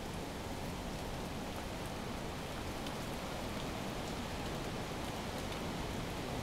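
Steady rushing noise of a severe thunderstorm: rain falling, with a fluctuating low rumble of wind on the microphone and faint ticks of drops.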